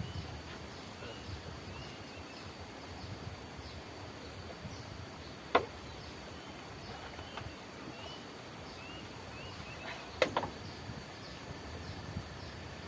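Outdoor paddy-field ambience: small birds chirping in short rising notes over a steady high-pitched insect drone. Two sharp clicks stand out, one about halfway through and one about ten seconds in.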